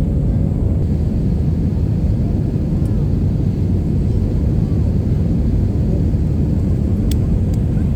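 Steady low rumble of an airliner's engines heard inside the passenger cabin.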